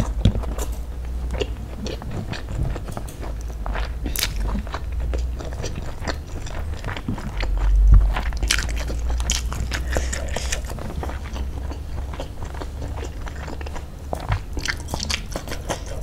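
Person chewing and biting into sauce-coated spicy fried chicken and rice eaten by hand, with irregular crunches and small clicks throughout. There is a louder thump about halfway through, as the chicken piece is handled on the plate.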